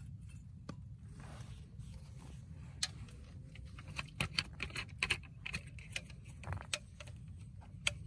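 Irregular light clicks and taps, scattered at first and bunching up from about three seconds in, over a steady low rumble.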